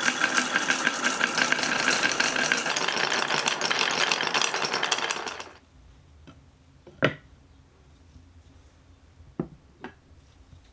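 Many marbles rolling and rattling together down HABA wooden slopes in a fast, dense clatter that stops about five and a half seconds in. A few single marble clicks follow, the loudest about seven seconds in.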